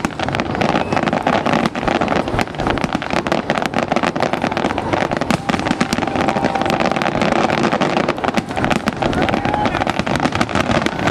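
Fireworks going off in rapid succession: a dense, continuous crackling and popping over a steady rumble.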